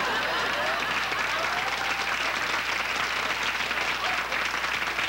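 Sitcom studio audience applauding with laughter mixed in, a sustained reaction to a joke.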